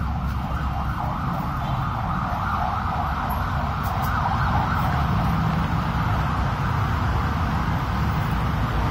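Golden Dragon XML6125 city bus running steadily at a standstill: a low engine rumble with a steady whine over it, growing a little louder about four seconds in.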